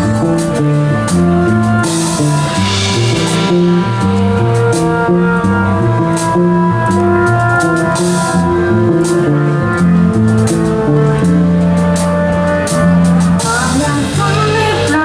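Live pop band playing an instrumental passage: keyboard chords over bass, electric guitar and drums with a steady beat. A woman's singing comes in near the end.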